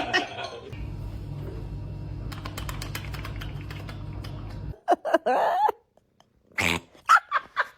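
A run of quick dry clicks over a steady low hum, then a cat's short pitched calls: one at about the middle and several quick ones near the end, in the manner of a cat that sounds like a quacking duck.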